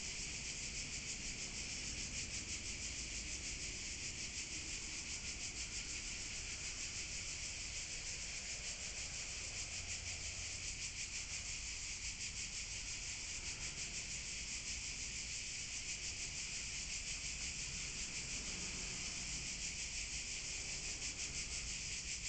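Chorus of insects (crickets or cicadas) chirring: a steady, high-pitched, rapidly pulsing drone.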